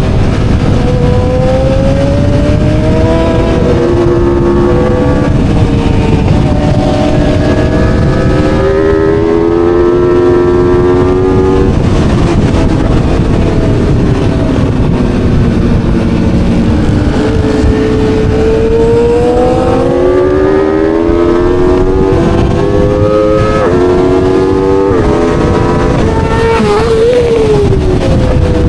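Aprilia Tuono V4 motorcycle's V4 engine at speed on a race track. Its pitch climbs under acceleration and drops on braking and downshifts several times, over a steady low rush of wind noise.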